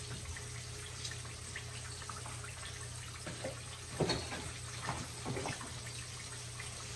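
Whole red snapper frying in hot oil in a cast-iron skillet: a steady hiss with scattered crackles and pops, a few louder about four and five seconds in, over a low steady hum.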